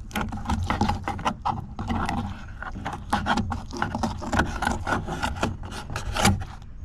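Fillet knife cutting down an oyster toadfish's spine on a plastic cutting board: a run of quick, irregular scraping strokes as the blade works along the bone, with one louder scrape near the end.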